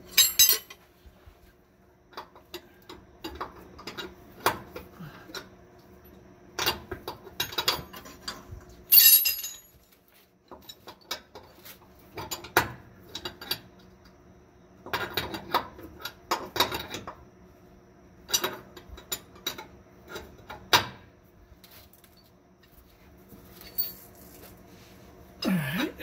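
Metal clicks and clinks of a wrench working a nut on a steel trac bar bracket, coming in irregular bunches with quiet pauses between.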